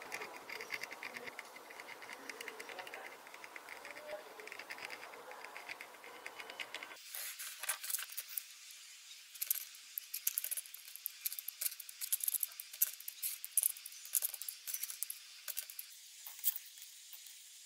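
Steady hiss for about seven seconds, then many small sharp clicks and taps as surface-mount components are set down with tweezers onto a circuit board.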